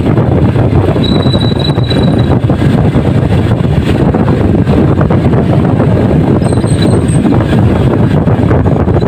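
Motorcycle riding at a steady pace, its engine running under a heavy, steady rumble of wind and road noise on the rider's camera microphone.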